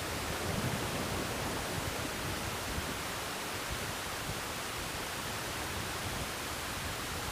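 Steady rushing noise of sea surf washing against the concrete tetrapods of a breakwater, mixed with wind.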